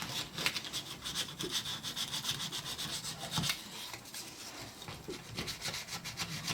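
Fine 400-grit sandpaper rubbed by hand over a plastic seat trim panel in quick repeated strokes, scuffing the surface so epoxy will grip.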